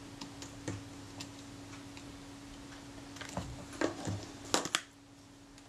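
Small clicks and taps of metal parts on a Kodak Retina IIIc camera being handled during reassembly, scattered at first, with a quick run of sharper clicks between about three and five seconds in.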